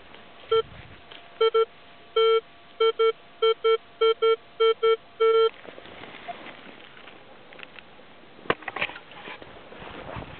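Minelab X-Terra 705 metal detector giving about a dozen short beeps, all at the same low pitch, as the coil is swept back and forth, signalling a metal target under the coil. The beeps stop about halfway through, followed by rustling and a sharp knock.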